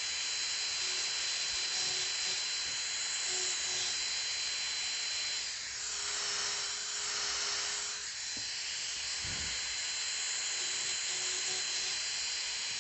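High-speed dental handpiece running steadily with a fissure bur, a constant high whine over hissing air, as it cuts the cavity wall of an upper first molar during an amalgam cavity preparation.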